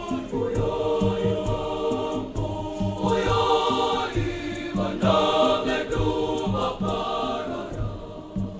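Girls' choir singing in several-part harmony over a steady percussive beat, the singing easing off near the end.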